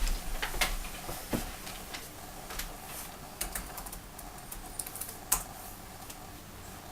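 A run of irregular light clicks and taps, busiest in the first second or so and thinning out, with one sharper click about five seconds in.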